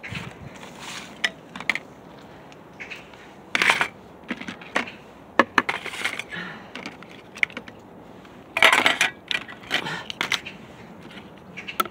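Irregular clicks and short rattles of dry cat food kibble, with longer rattles about three and a half and eight and a half seconds in.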